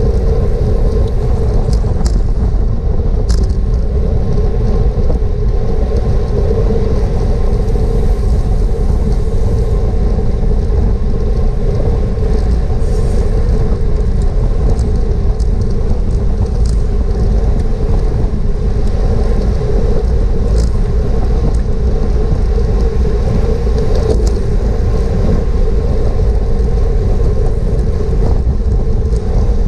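Steady, loud wind rush and rumble on a GoPro microphone on a racing bicycle at speed, with a few faint clicks.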